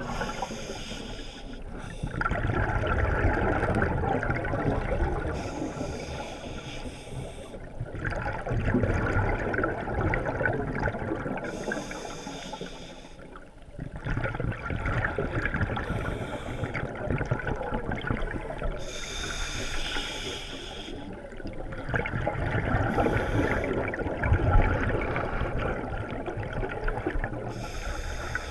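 Scuba diver's open-circuit breathing heard underwater: bubbly exhalations through the regulator gurgling in long swells, each a few seconds long, with brief quieter pauses for inhaling roughly every five to six seconds.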